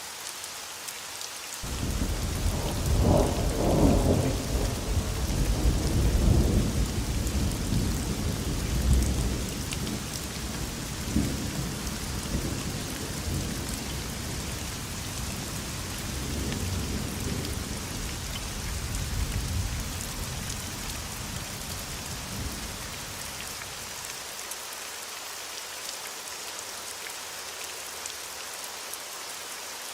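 Thunderstorm: steady rain hiss with a long, rolling rumble of thunder. The thunder breaks in suddenly a couple of seconds in and is loudest over the next several seconds. It keeps swelling and fading, then dies away about three-quarters of the way through, leaving the rain alone.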